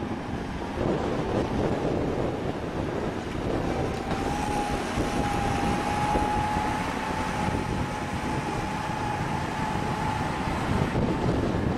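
Farm tractor running under load as it pulls a scraper through the soil, a dense steady rumble. A steady whine joins about four seconds in and holds for most of the rest.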